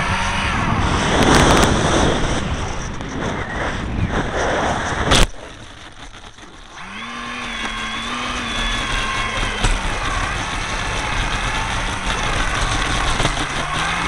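Rushing wind and motor noise on a model airplane's onboard camera, ended by a single sharp knock about five seconds in as the plane comes down on the snow. The noise then drops away sharply, and from about seven seconds a steady hum with a wavering pitch takes over.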